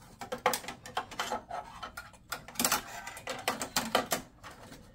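Irregular metallic clicks, knocks and rattles of a video card and its metal bracket being worked into an expansion slot of a steel computer case, bumping against the case's sheet metal.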